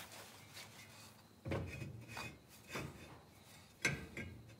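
Finned brake drum being slid over the new brake shoes and onto the wheel hub, metal scraping and rubbing in a few short strokes that begin about a second and a half in.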